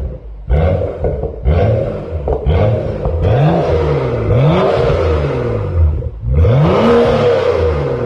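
BMW F10 535i's turbocharged 3.0-litre inline-six revved hard while standing, through an aftermarket Armytrix valvetronic exhaust. A run of quick throttle blips, each rising and falling in pitch, with a longer, higher rev about six and a half seconds in.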